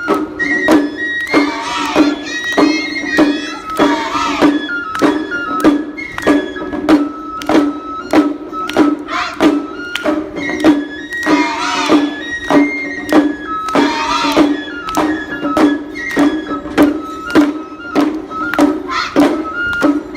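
Lion-dance music: drum strikes about twice a second under a stepping, flute-like high melody and a steady low drone.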